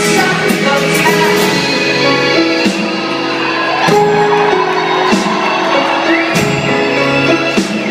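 Live indie-folk rock band playing, with singing over sustained instruments and regular drum hits about every second, recorded at a concert.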